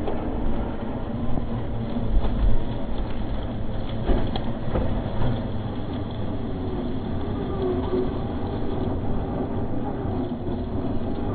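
Radio-controlled scale tow truck driving over a rough dirt track: its motor and gearbox whine steadily under load, with the rattles, squeaks and bumps of the model chassis and the towed buggy, and a couple of sharper knocks about two and four seconds in.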